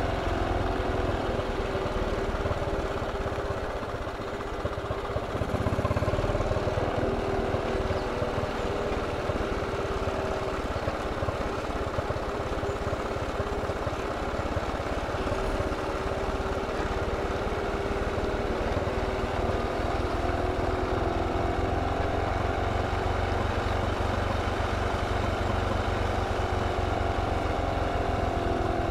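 BMW R27 single-cylinder four-stroke engine running at low, steady revs while the motorcycle is ridden. It dips briefly about four seconds in and picks up again.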